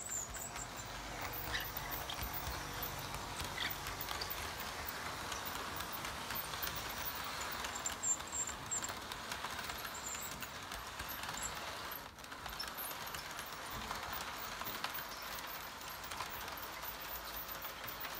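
Model passenger train running along sectional track with roadbed: the steady rolling rattle of its wheels on the rails and its motor.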